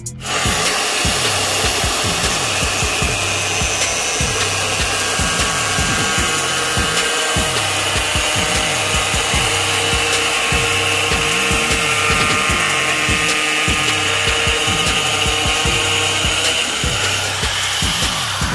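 Angle grinder with a thin cutting disc running steadily as it cuts through flattened PVC pipe sheet: a continuous grinding hiss with a steady whine over it. It starts abruptly and stops near the end.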